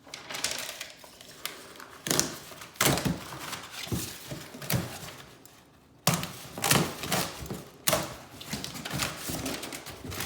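Cardboard box being opened and its packing handled: irregular thunks, clicks and scraping of cardboard, with louder handling starting about two seconds in and again about six seconds in.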